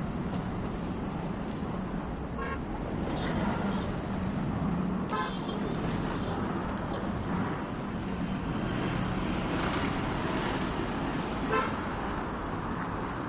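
Steady road traffic passing, with vehicle horns giving short toots about three times.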